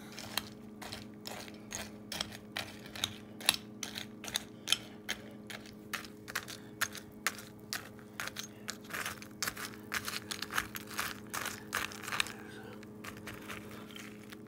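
Metal spoon stirring and scooping crunchy cereal pieces in a ceramic bowl: a long run of irregular clicks and crunches, several a second, stopping near the end.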